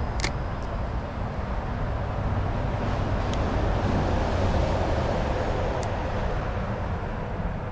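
Steady highway traffic noise, rising to its loudest in the middle as a vehicle goes past and then easing off. A few short, sharp ticks stand out over it.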